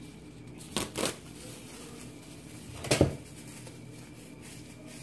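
A thin plastic grocery bag being handled, rustling and crinkling in short bursts: twice about a second in, and once more loudly about three seconds in.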